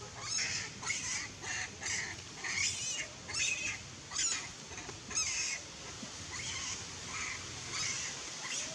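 Macaques giving short, high-pitched squeals and screeches, two or three a second for the first five seconds or so, then fewer and fainter.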